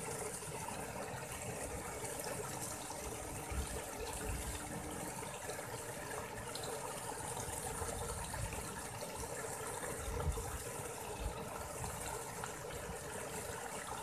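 Steady trickling and running of water in a small shallow stream, with a few low bumps.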